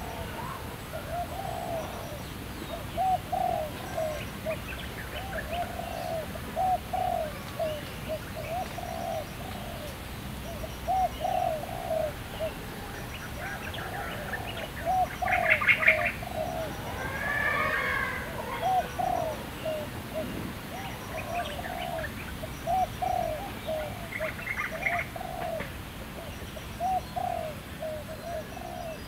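A dove cooing over and over in short runs of two or three notes, with other birds chirping; a louder, higher trilled call comes about halfway through.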